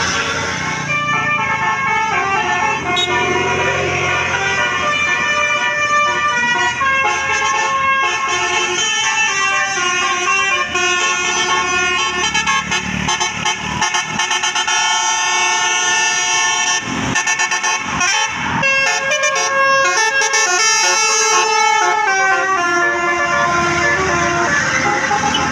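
Tour bus's multi-tone 'telolet' Basuri horn playing a melody: a run of held horn notes that step from pitch to pitch. A few sharp clicks come about two thirds of the way through.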